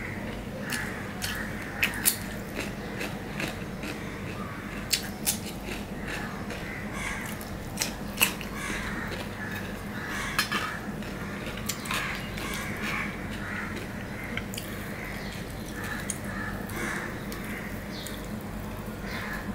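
Close-up eating sounds: crunching bites of raw cucumber slices and chewing, with sharp clicks of fingers and food against stainless steel plates, over a steady low hum.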